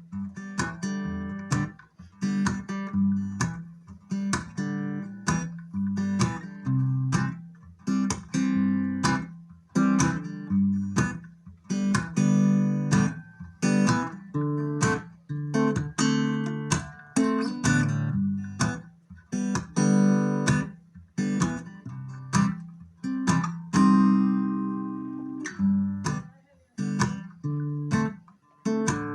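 Acoustic guitar strummed in a steady rhythm, chords ringing between strokes: the instrumental intro of a country song, before the vocals come in.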